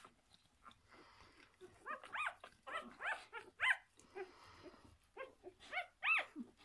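Newborn puppies, six days old, squeaking and whimpering as they nurse: a string of short high calls, each rising and falling in pitch, coming thickly about two to four seconds in and again near the end.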